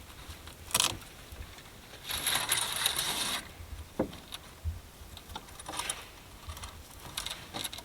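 Scattered clicks and knocks, with a rustling burst lasting about a second and a half about two seconds in: small objects being handled.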